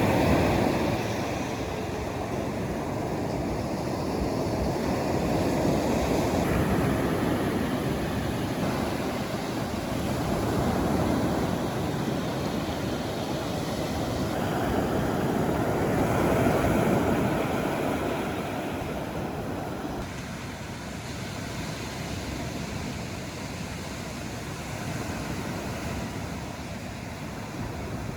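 Sea surf washing onto the shore, swelling louder every five or six seconds and settling lower in the last third.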